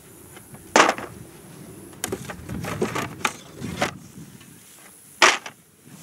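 Metal hive tool prying at and scraping wooden frames in a beehive box, with a sharp loud knock about a second in, a run of shorter scrapes and knocks in the middle, and another sharp knock near the end.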